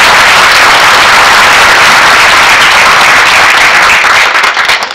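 Audience applauding, a dense steady clapping that thins out and breaks up in the last second.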